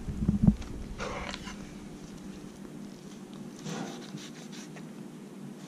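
Faint wet handling of a pufferfish carcass on a cutting board as its head is bent and broken away and a knife works through the flesh. There are soft knocks in the first half second and quiet squelching and scraping after that, over a low steady hum.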